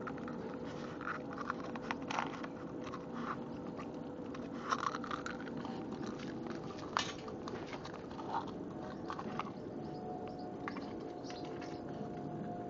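Rottweiler puppy biting and chewing at a raw egg, its shell crunching in irregular clicks and cracks.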